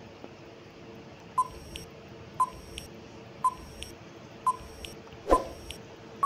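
Quiz countdown-timer sound effect: five short clicking beeps about one a second, the last one loudest, counting down to the answer.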